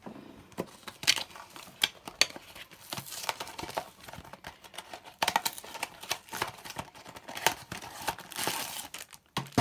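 A Funko Mystery Minis cardboard blind box being torn open by hand: irregular rips and sharp crackles of the card, with rustling stretches, then the crinkle of the foil bag inside near the end.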